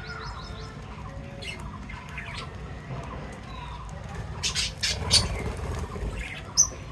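Pet birds chirping and squawking, with a burst of loud, sharp squawks past the middle and one short high squeak near the end.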